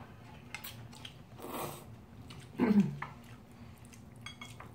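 Eating sounds from ramen noodles and gimbap: a short slurp of noodles about one and a half seconds in, chewing, a brief hummed 'mm' a little later, and a few light clicks of chopsticks near the end.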